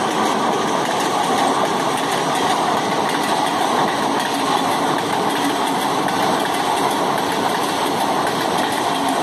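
Passenger coaches of an electric-hauled express train rolling past: a steady, unbroken noise of wheels running on the rails.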